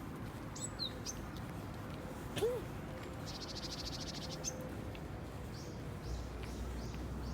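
Wild birds calling in open air over a steady background: a few short high chirps, one louder short call about two and a half seconds in, and a buzzy trill lasting about a second.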